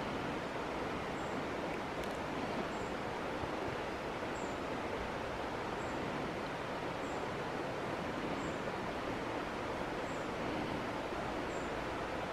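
Steady outdoor background noise with no clear source, and a faint, short, high-pitched chirp repeating about every second and a half.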